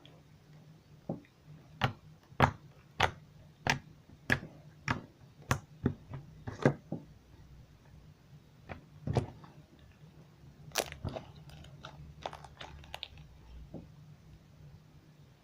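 Crunchy slime with beads mixed in, worked by hand and giving sharp crunchy pops, a steady run about every half second, then scattered ones. The slime is stiff, not very stretchy, from too much laundry detergent.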